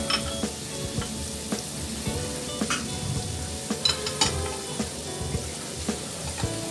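Hot oil and spices sizzling in an aluminium pot as diced vegetables are dropped in, with scattered knocks of pieces landing on the metal.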